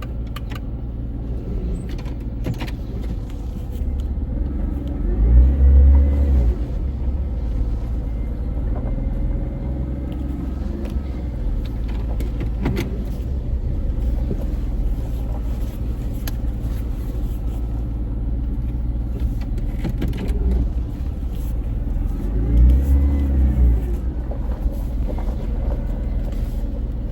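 Jeep engine idling steadily, revved briefly twice: once about five seconds in and again about twenty-two seconds in, the pitch rising and falling each time.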